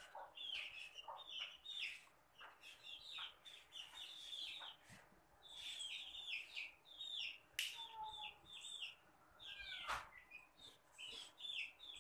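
Birds chirping faintly: many short, falling chirps in quick succession, with two sharp clicks in the second half.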